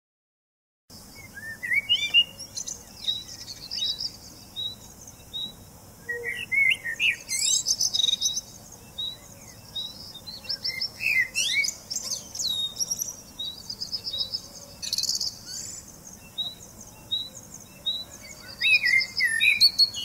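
Dawn chorus of several songbirds: one repeats a short high note about twice a second while others give quick chirping phrases and fast trills. The birdsong starts about a second in.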